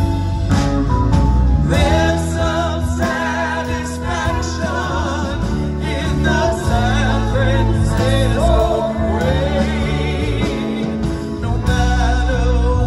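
Live rock band playing: a woman sings the lead with vibrato over bass, drums, electric guitar and keyboards, with backing vocals.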